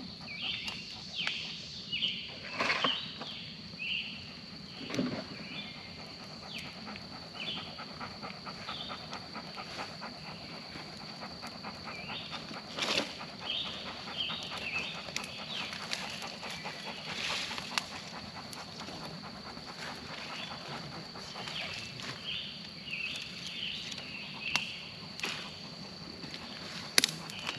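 Brush and stump pile burning: crackling with several sharp pops, the loudest near the end, over a steady high insect drone.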